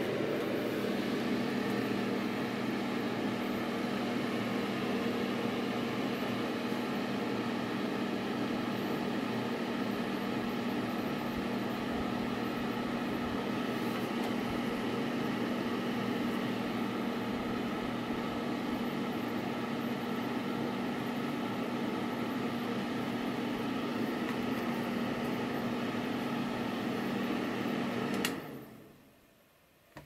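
ANAC ANH-6950 mini electric fan heater running: the steady whoosh of its fan with a low steady hum. About two seconds before the end it switches off with a click and the fan winds down within a second and a half.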